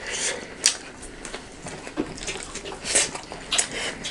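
Close-up eating sounds of roast chicken wings and rice with daal: chewing, lip smacks and small wet clicks at irregular moments.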